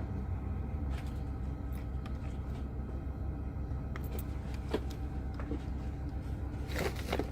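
1985 Titan motorhome's engine idling steadily just after starting, with a few light clicks over it.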